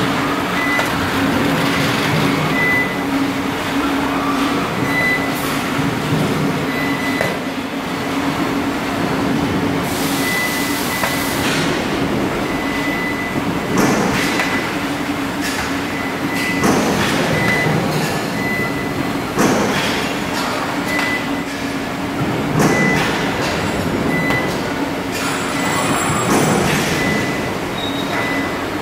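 Robotic spot-welding cell at work: a steady machine hum with irregular sharp knocks and snaps as the Yaskawa robot's spot-welding gun moves, clamps and welds, and a short burst of hissing air about ten seconds in. A short high beep repeats throughout.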